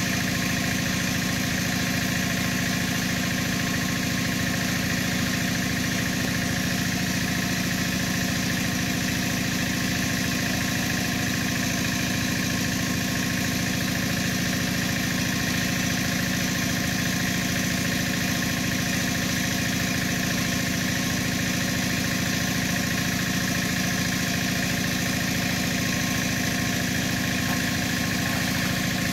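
A small engine running steadily, its drone unchanging throughout.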